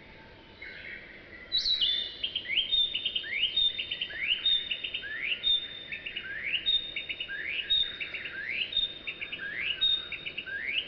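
A songbird singing the same short phrase over and over, about once a second: a quick rising whistle followed by a short, higher held note. The song grows loud about one and a half seconds in.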